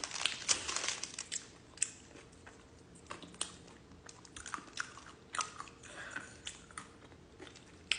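Close-miked chewing of a mouthful of chicken avocado burrito: irregular soft mouth clicks and wet chewing noises.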